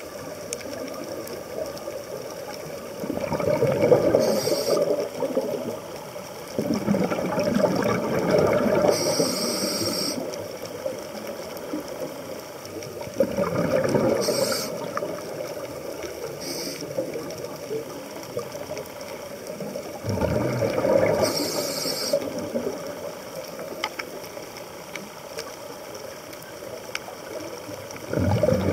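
Scuba diver breathing through a regulator underwater: about five breaths several seconds apart, each a hiss with a gurgling rush of exhaled bubbles, over a steady hiss between breaths.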